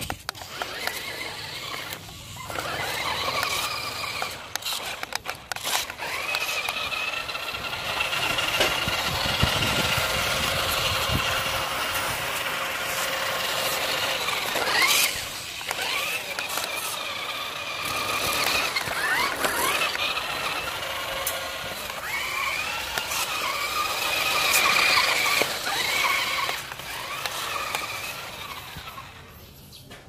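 Toy RC rock crawler's electric drive motors and gearing whining as it drives, the pitch rising and falling with the throttle. There are sharp clicks and knocks in the first few seconds, and the whine dies down near the end.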